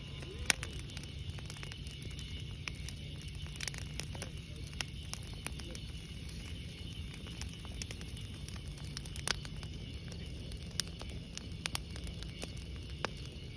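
Bonfire of dry branches and wood burning with a steady low rush, with sharp pops and crackles scattered throughout. The loudest pop comes about half a second in.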